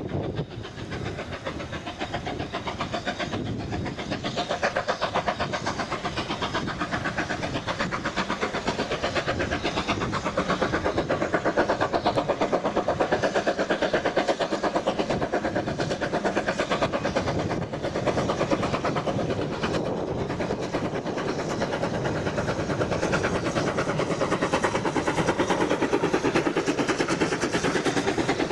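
BR Standard 9F two-cylinder 2-10-0 steam locomotive chuffing steadily with rapid, even exhaust beats as it hauls a train, growing louder over the first dozen seconds as it approaches, with the coaches rolling past near the end.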